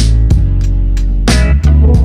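Background music with a steady drum beat over a deep, sustained bass line.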